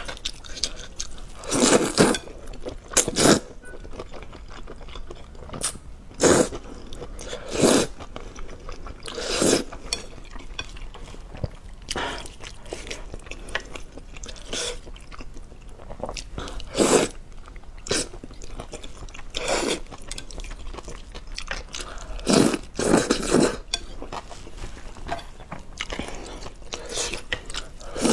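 A person eating wide flat noodles in spicy broth: short loud slurps and bites every one to three seconds, with quieter wet chewing between.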